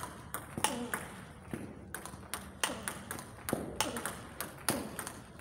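Table tennis ball clicking sharply off the bats and the table in a fast backhand drive drill, a quick regular run of clicks, a few each second.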